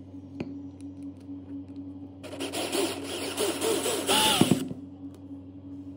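Cordless drill driver running for about two and a half seconds, turning a wood screw into a pine board through a hole filled with hardened super glue and baking soda; the motor's tone wavers under load and falls away as it stops.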